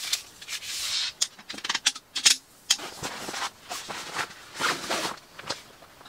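A folding camp cot being handled for assembly: its metal poles and frame clink and knock together in a string of sharp clicks, the loudest a little past two seconds in, with rustling of its fabric bed between them.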